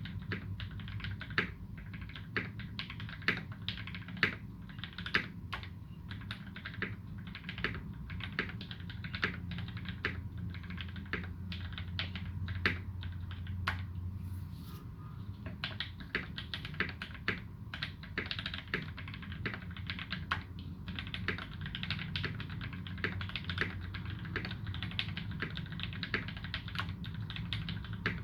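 Continuous typing on a custom UTD360C mechanical keyboard with modded linear Gateron Ink Black v2 switches and GMK Dolch keycaps: a fast, uneven run of key strokes, thinning briefly about halfway through.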